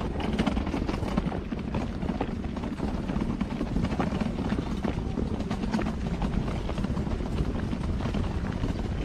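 Footsteps of a walker on a dirt-and-gravel forest trail over a steady low rumble of wind and handling on the microphone.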